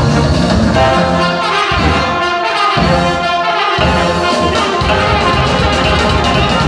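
Live band music with a trombone playing a melody close by. The low backing drops out for about two seconds in the middle, leaving the brass on its own.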